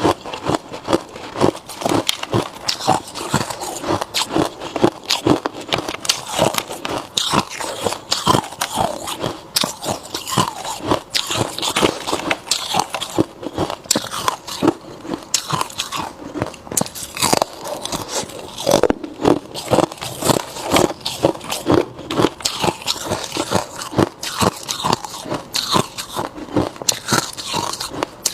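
Hard ice being bitten and chewed up close, a dense run of loud crunches several times a second.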